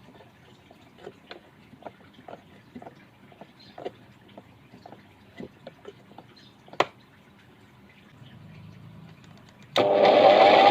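Light clicks and taps of handling, then near the end an electric drill powering a homemade wood lathe switches on suddenly and runs up to speed with a rising whine.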